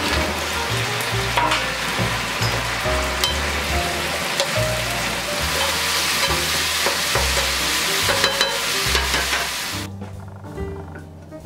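Battered fried pork pieces sizzling in a hot sauce in a frying pan as they are stir-fried over high heat with a wooden spatula, with a few sharp clicks of the spatula on the pan. The sizzling stops about ten seconds in.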